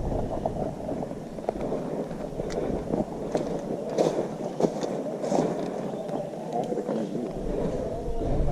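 Rustling and scraping close to the microphone, with a handful of scattered sharp clicks.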